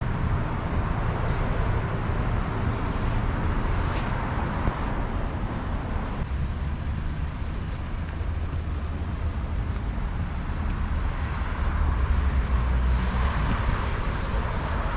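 City road traffic: cars going by with a steady low rumble and a haze of tyre noise.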